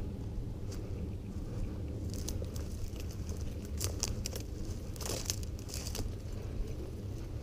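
Footsteps crunching through dry grass and brush over a steady low rumble, with sharper crackles about two, four and five seconds in.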